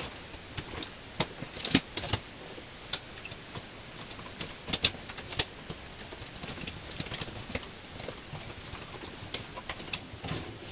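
Light, irregular clicks and clinks of dishes and the dishwasher's rack being handled while the dishwasher is loaded, with a small flurry of clinks about five seconds in.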